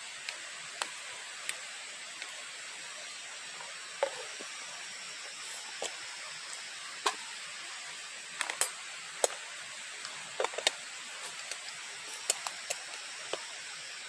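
Irregular sharp clicks and small cracks, about one a second, over a steady hiss.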